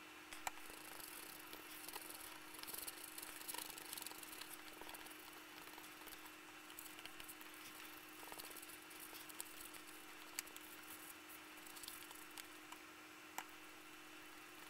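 Faint scratchy swishing of a paintbrush stroking dark blue paint onto a paper plate, busiest in the first few seconds, with a few sharp clicks and a steady low hum underneath.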